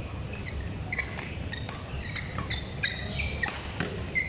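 Badminton shoes squeaking in many short high chirps on the court mat, with a few sharp racket-on-shuttlecock hits, over a steady low rumble.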